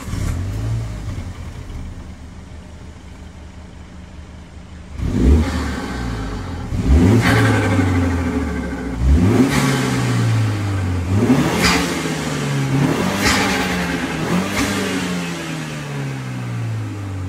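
Stock catback exhaust of a MINI F56 John Cooper Works LCI2, a 2.0-litre turbo four-cylinder. It idles for about five seconds, then is blipped up sharply six or seven times, each rev falling back slowly toward idle.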